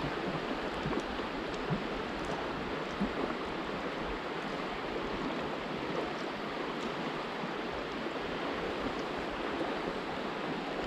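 Shallow river flowing fast over a riffle: a steady rushing of running water.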